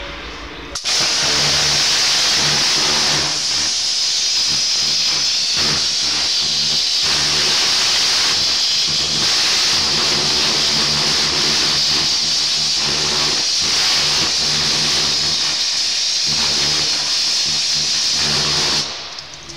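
Kärcher pressure washer blasting a high-pressure water jet into a wooden board: a loud, steady hiss of spray that starts about a second in and cuts off near the end, with the low hum of the pump motor underneath.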